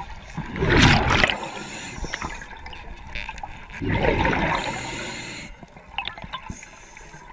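Underwater water noise with two rushing, bubbling swells about three seconds apart, the first about a second in and the second around four seconds in.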